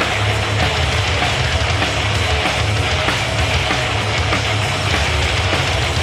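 Thrash-punk band playing live at full volume: a drum kit with distorted guitars and heavy bass, dense and unbroken.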